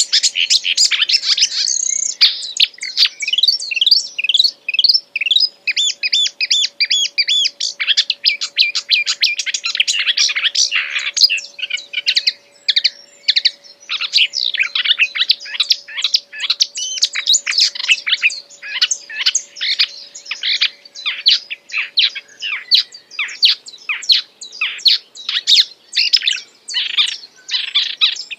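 A songbird singing nonstop in a fast, varied string of sharp chirps, whistled sweeps and trills, the energetic full-repertoire song that Indonesian bird keepers call 'gacor'. A faint steady hum runs underneath.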